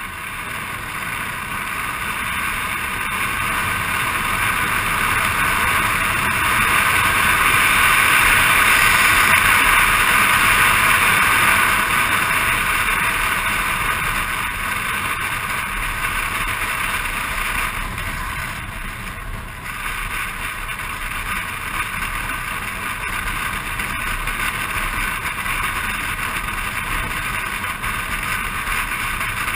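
Motor scooter riding along at speed: a steady run of engine and rushing wind and road noise at the on-board camera. It swells to its loudest about a third of the way in, then eases off, with a brief dip about two thirds of the way through.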